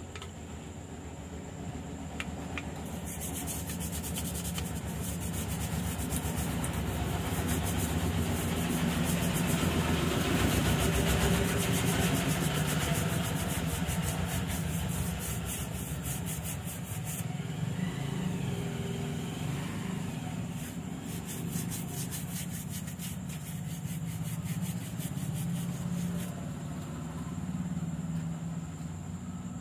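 A brush scrubbing the circuit board of a water-damaged motorcycle digital meter to clean it. It makes a steady, rapid rasping that grows louder toward the middle and eases off later.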